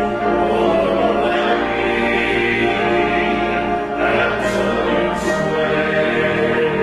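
A small group of singers with handheld microphones sing a hymn of commitment and decision together in sustained, held notes, with sharp 's' sounds about four and a half and five seconds in.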